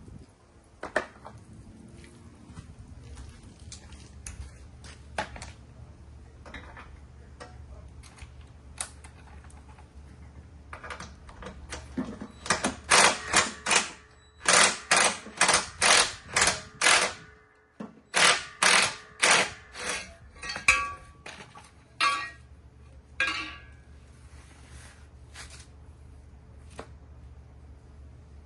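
Hand-tool work on metal: scattered clicks and knocks, then, about midway, a run of about a dozen loud, rapid metallic strokes at roughly two a second, some with a short ring, before it thins out to occasional clicks.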